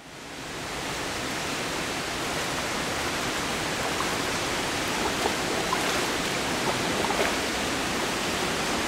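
Steady rushing water noise of an indoor swimming pool, with a few light splashes from a swimmer's strokes in the middle.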